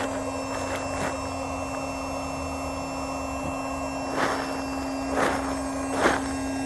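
Small electric air pump running with a steady hum, inflating a vinyl boat's chamber, with three short rushes of noise about a second apart near the end. The pump seems to have stopped adding pressure as the chamber nears full, so the rest will be done by hand.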